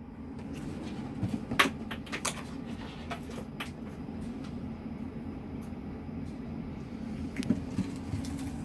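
A small plastic toy lid clattering on a hard floor several times after being thrown, the loudest knock about a second and a half in, with a few more light knocks near the end. A steady low hum sits underneath.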